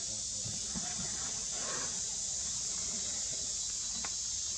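Steady high-pitched drone of an insect chorus in forest trees, with a faint click near the end.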